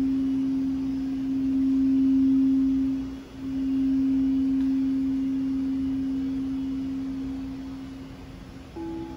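Crystal singing bowls ringing. One bowl holds a steady low tone that swells and fades, with a brief dip about three seconds in. Near the end a second bowl comes in suddenly with a higher tone.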